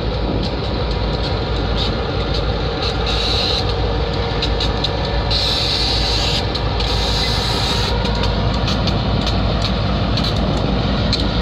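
Diesel switcher locomotives and a tank car rolling slowly across a road crossing: a steady low engine rumble with the wheels clicking over the rail joints, the clicks coming thicker near the end. A hiss lasts a couple of seconds about halfway through.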